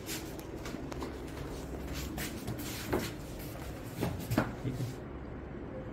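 Cloth rustling and handling noise with a few soft knocks and clicks, the strongest about three and about four and a half seconds in, over a low steady hum.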